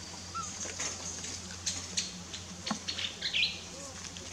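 Short high-pitched animal chirps: a faint one early, and the loudest, a quick falling chirp, about three seconds in. Before it come a few scattered sharp clicks, over a faint steady hum and high hiss.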